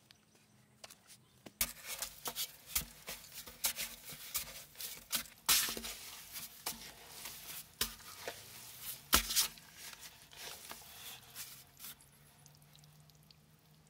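Shovel blade stabbing and scraping into damp, packed sand, an irregular run of crunching strikes, with two louder strikes about five and a half and nine seconds in.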